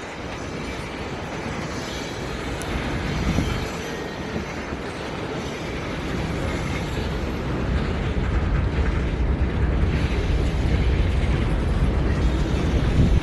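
Freight train rolling past: a steady, heavy rumble of railcars that grows louder over the last few seconds.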